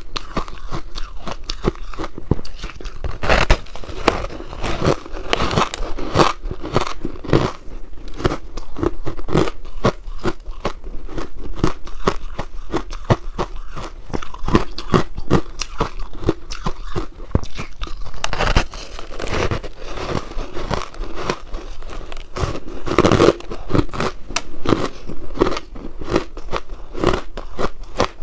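Biting and chewing through a slab of frozen pink ice: dense crunching and crackling as the ice breaks between the teeth, with louder bites about three, eighteen and twenty-three seconds in.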